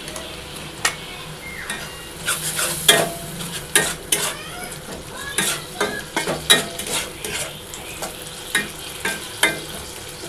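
Metal spatula stirring and scraping browned onion paste, with turmeric and salt just added, as it fries in oil in a kadai: a steady sizzle broken by a dozen or so irregular clicks and scrapes against the pan.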